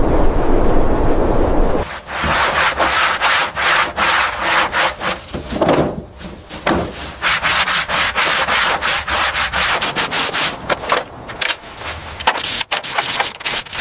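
A steady rushing noise for about two seconds, then sanding by hand: rapid back-and-forth rasping strokes, several a second.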